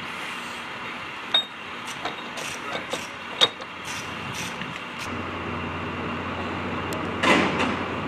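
Sharp metallic clinks and taps of a hand tool working at a jet's landing-gear wheel hub, over steady flightline background noise. Two clinks ring out loudest, about two seconds apart. A low steady hum joins about five seconds in, and a louder clatter comes near the end.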